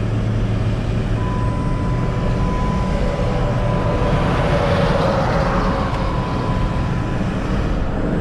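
Steady road and engine noise inside a van's cabin at highway speed while towing an empty trailer, swelling briefly about halfway through, with a thin steady whine under it.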